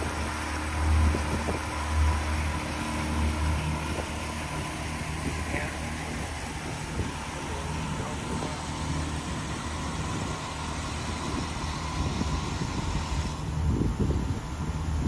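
Pontoon boat's outboard motor running under way, a steady low drone with a rushing hiss of wind and water over it.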